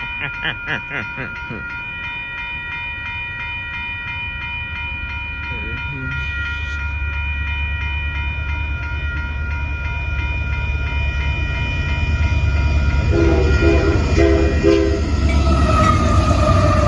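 Union Pacific locomotive horn sounding a long held multi-note chord as the intermodal train approaches at speed, under the low rumble of the lead locomotives and train, which grows louder from about six seconds in. The horn cuts off near the end, leaving the rumble of the passing train.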